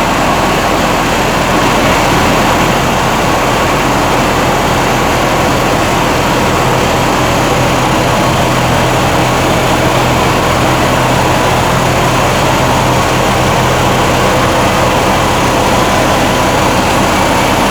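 Rice huller driven by a Mitsubishi PS120 single-cylinder diesel engine, running steadily under load with a loud, even mechanical hum.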